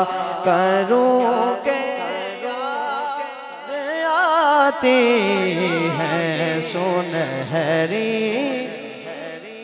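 A man singing a naat through a microphone, a wordless melismatic passage of long held notes with heavy vibrato that slide from pitch to pitch, fading away near the end.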